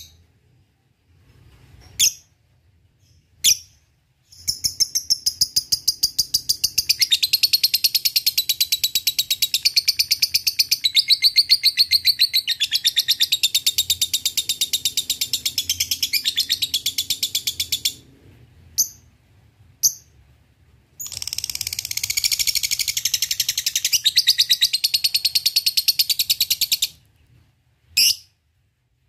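Lovebird calling: a few sharp single chirps (ngetik), then a long, very fast chattering trill (ngekek) lasting about thirteen seconds. After two more single chirps comes a second chatter of about six seconds, then one more chirp near the end.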